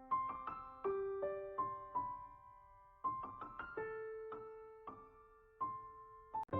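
Piano music: a slow melody of single notes, each struck and left to fade, broken by a couple of quick runs of notes.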